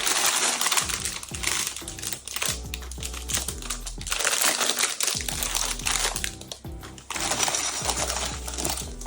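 Plastic LEGO parts bags crinkling and tearing open in several bursts of rustling, over background music.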